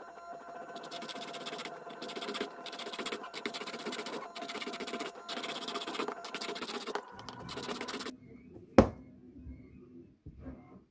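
Small hand saw cutting through a clear plastic tube in short back-and-forth strokes, roughly one every 0.7 seconds; the strokes stop about eight seconds in, and a single sharp knock follows.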